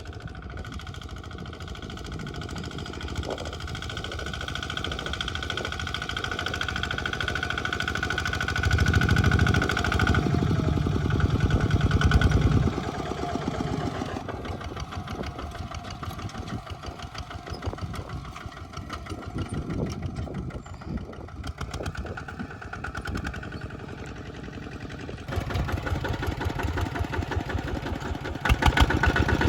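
A Kubota tractor's engine runs continuously while plowing, with a fast, even clatter. It grows louder for a few seconds about a third of the way in, drops back, and rises again near the end as the load changes.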